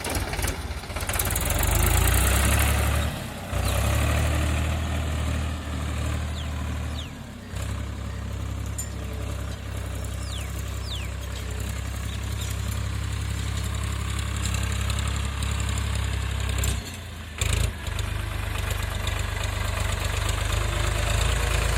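Steady low rumble of a vehicle's engine running, with brief dips in level a few times.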